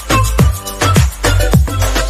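Electronic dance music with a steady kick drum beating a little over twice a second, under held synth tones.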